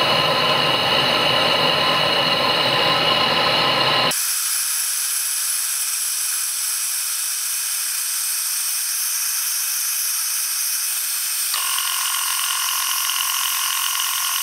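Gas torch flame hissing steadily as it heats a stainless steel 304 bolt red hot, over a steady high whine. About four seconds in the deeper part of the sound drops out abruptly, leaving a thin high hiss, and more of it returns near the end.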